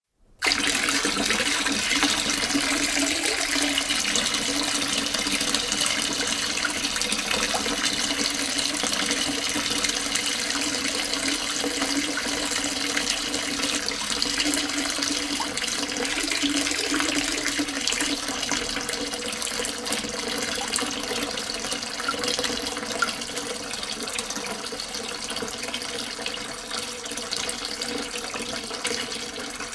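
Water pouring into a sink in a steady splashing stream. It starts abruptly about half a second in and gets slowly a little quieter toward the end.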